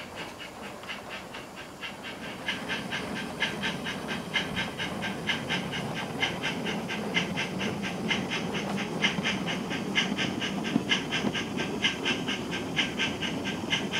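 Loksound sound decoder in an On30 model of a Victorian Railways NA class 2-6-2T steam locomotive, playing recorded exhaust chuffs of Puffing Billy's 14A through the model's small speaker. The chuffing is rapid and even, about five beats a second, and grows louder about two and a half seconds in, over a low rumble of the model train's wheels on the track.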